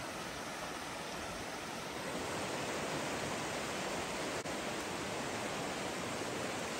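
Steady rush of a fast, shallow creek running over rocks: an even, hissing water sound with a brief drop about four and a half seconds in.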